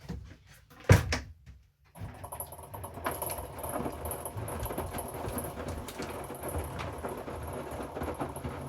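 A single loud thump about a second in, then, after a brief near-silent gap, a Hoover front-loading washing machine running mid-cycle: a steady churning noise with a high hiss over it.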